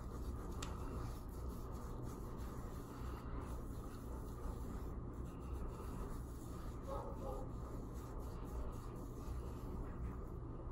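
Terry washcloth rubbing over skin as makeup is wiped off the face and neck, a soft continuous scrubbing, over a steady low background hum.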